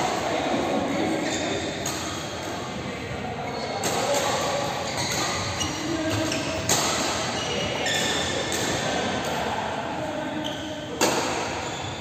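Badminton rackets striking a shuttlecock, sharp string pings a few seconds apart, echoing in a large indoor hall.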